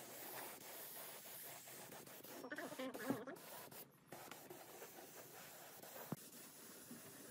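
Faint hiss with light scratching and rubbing sounds, and a single sharp click about six seconds in.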